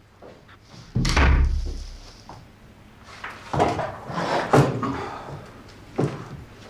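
An interior door slammed shut about a second in, with a deep boom, followed by several shorter knocks and thuds and one more sharp knock near the end.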